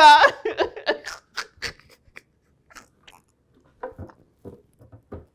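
Two women laughing hard: a loud burst of laughter at the very start, then short, breathless gasps and wheezes of near-silent laughter, spaced out, with a little voiced laughing near the end.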